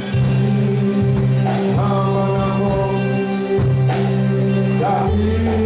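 Gospel-style band music with steady bass notes, held chords and a drum beat, with a voice singing over it.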